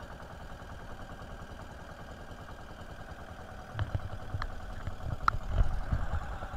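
A bangka's engine running steadily at sea, a low hum with a buzzy, rapidly pulsing tone. From about four seconds in, a few sharp clicks and several heavy low thumps break in over it.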